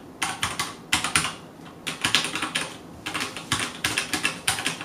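Typing on a Vortex Tab75 75% mechanical keyboard with red linear switches, stock without silencing O-rings: quick runs of light clacking keystrokes ("kata-kata") with short pauses between runs, not very loud.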